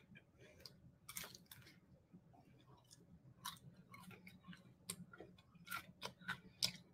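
A woman chewing a mouthful of homemade pita pizza: faint, irregular clicks of lips and mouth, a few a second, with the sharpest near the end.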